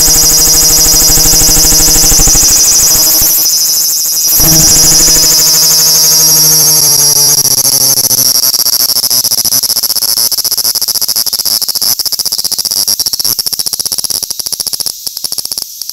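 Large brown cicada (Graptopsaltria nigrofuscata) singing at close range: a loud, dense buzz that dips briefly about four seconds in, then slowly fades and breaks into stuttering pulses near the end as the song winds down.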